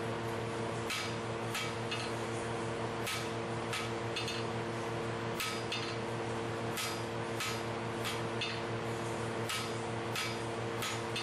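Hammer blows on a red-hot steel bar being drawn out: a dozen or so sharp, ringing metallic strikes, unevenly spaced at about one a second, some in quick pairs, over a steady low machine hum.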